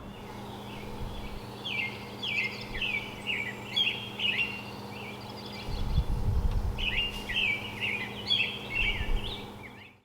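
Small birds chirping in quick runs of short, falling notes, with a brief low rumble about six seconds in and a faint steady hum underneath.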